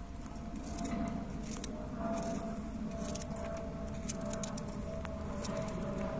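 Knife slicing a peeled apple held in the hand, a run of small crisp cutting clicks with pieces dropping into a steel mug, over a steady low background rumble.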